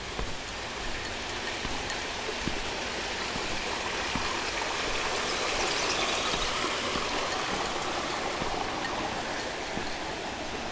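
Running water from a garden water feature: a steady rush that grows louder toward the middle and eases off again.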